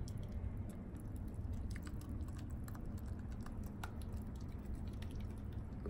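Thick blended green marinade poured from a small blender jar onto raw chicken wings: faint wet squishing with scattered small clicks, over a low steady hum.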